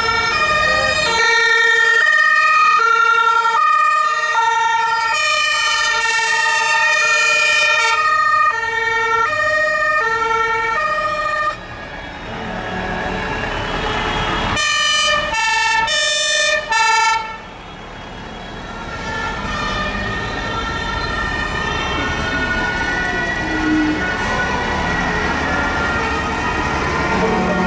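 Two-tone emergency-vehicle siren alternating steadily between two pitches, stopping about eleven seconds in. Three short horn blasts follow in quick succession, then the engines and tyres of fire and rescue trucks driving past.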